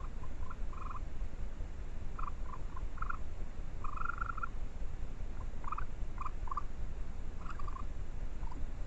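Short, high trilling calls from a small animal, about a dozen at irregular intervals, with one longer trill of about half a second roughly four seconds in, over a steady low rumble.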